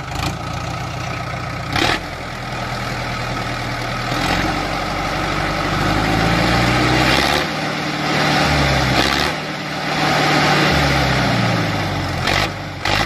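Tractor engine running, its pitch rising and falling several times as it revs.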